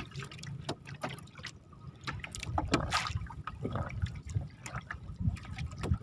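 Lake water splashing and dripping as a wet gill net is pulled by hand over the side of a small boat, with several short sharp splashes scattered through and a low steady rumble underneath.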